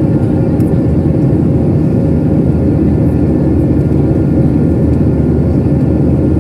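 Steady cabin noise inside a Boeing 737-700 in flight: the low, even roar of its CFM56 turbofan engines and the airflow over the fuselage, with a faint steady hum riding on top.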